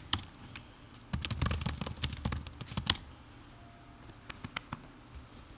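Typing on a computer keyboard: a quick run of keystrokes from about one to three seconds in, then a few scattered key presses.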